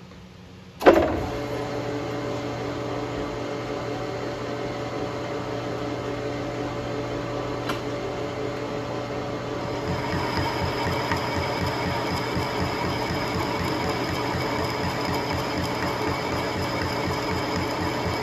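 Metal lathe starting up about a second in with a sudden clunk, then running steadily. About ten seconds in a carbide-insert boring bar begins an interrupted cut inside a shaft coupler's bore, adding a fast, even knocking as the tool strikes the old keyway and set-screw holes on each turn, with a high whine over it.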